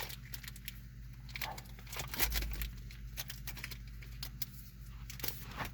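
Foil booster pack wrapper being crinkled and torn open, in quick, irregular crackles.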